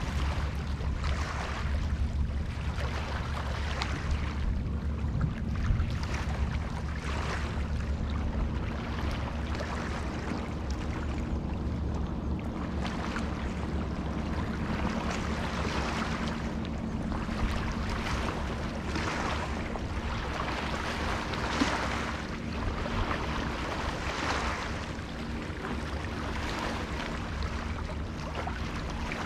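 Rain and wind at the water's edge, with small waves lapping in swells every second or two over a steady low hum. A few sharp ticks stand out.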